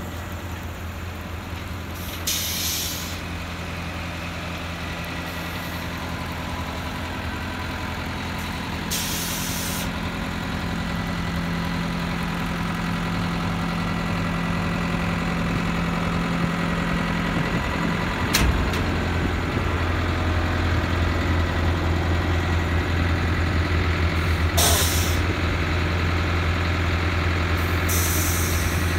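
Silage bagging machines running with a steady low hum that grows gradually louder. Four short hisses of released air break through, and a single sharp click comes about two-thirds of the way in.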